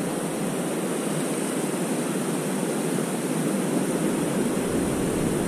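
Steady rush of ocean surf breaking on a beach, an even noise with no distinct events.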